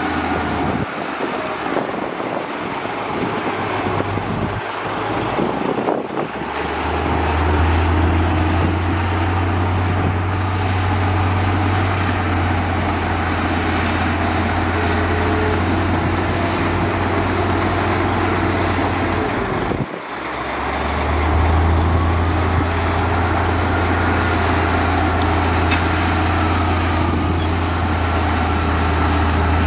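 Heavy diesel engines of earthmoving machines (dump trucks and a bulldozer) running steadily with a deep, even drone. The sound changes abruptly about six seconds and twenty seconds in.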